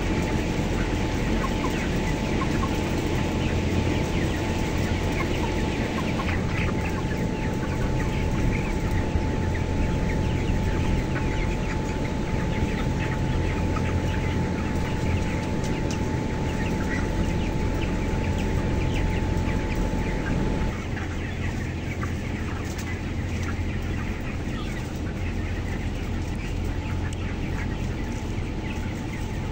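A large flock of 27-day-old broiler chickens chirping and clucking in many short overlapping calls, over the steady low hum of the closed house's ventilation fans. A thin steady whine in the hum stops about two-thirds of the way through, and the hum gets a little quieter.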